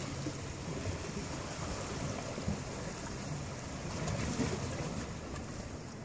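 Surf washing and breaking around rocky shoreline, a steady rushing of water.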